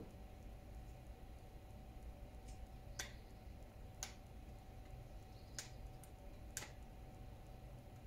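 Faint, sharp clicks of a screwdriver tip catching and slipping on a small cross-head screw in a backpack-sprayer part, about six of them spread over a few seconds, over a steady faint hum.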